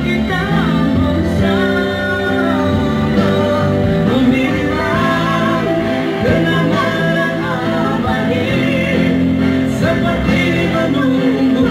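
Karaoke: a man singing a Malay pop ballad into a microphone over a pre-recorded backing track.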